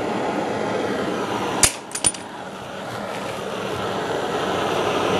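Steady mechanical running noise, broken about a second and a half in by two sharp metallic clicks of a tool knocking against metal.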